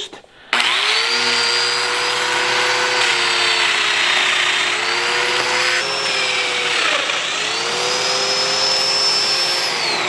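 Festool DF500 Domino joiner starting up and running with a high motor whine that sags in pitch as the cutter is plunged into the panel, twice, and winds down near the end.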